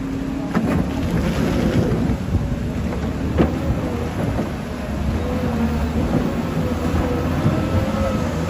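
A skip loader's engine rumbles low and steady in the rain. A wavering whine rises over it in the second half, with a few sharp clanks, the loudest about three and a half seconds in.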